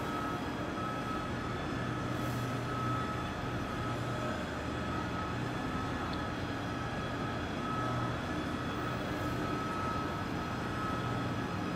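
Steady mechanical hum with a high, steady whine that wavers slightly, from the heavy wheeled transporter slowly moving the SLS rocket engine section across the hall floor.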